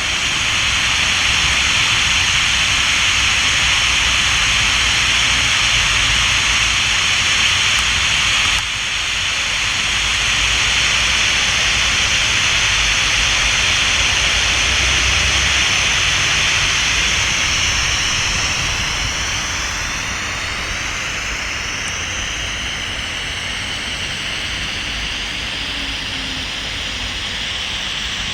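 Steady hiss of app-generated white noise, played as the background for a psychophony (EVP) recording. It dips briefly about eight and a half seconds in, and after about eighteen seconds it drops a little in level while wavering bands sweep through its upper part.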